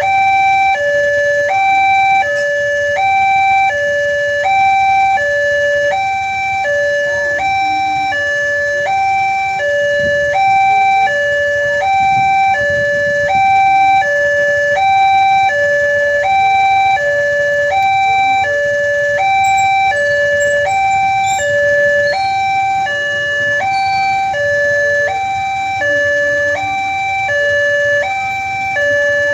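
Railway level-crossing electronic warning alarm sounding a steady two-tone hi-lo alternation, the pitch switching about every three-quarters of a second, warning that a train is approaching.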